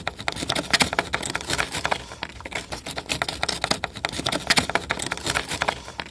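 Sandpaper rubbed by hand over the plastic base of a car side mirror, a quick irregular run of scratchy strokes. The surface is being scuffed so the epoxy putty will grip.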